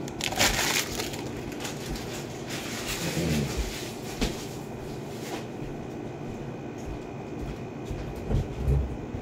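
Plastic trading-card pack wrappers crinkling and crumpling in a few short bursts, with a few dull knocks.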